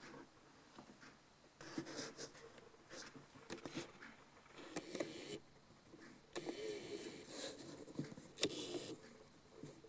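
Irregular rustling handling noise in short bursts, with a few light clicks and knocks, the loudest click about eight and a half seconds in.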